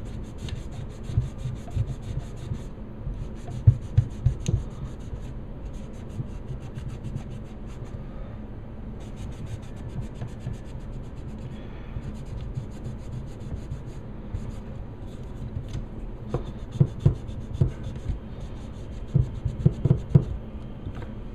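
A cloth rag wet with nail polish remover scrubbed rapidly back and forth over the painted receiver of an airsoft M4 rifle, rubbing the paint off, in runs with short pauses. There are a few dull knocks about four seconds in and again near the end.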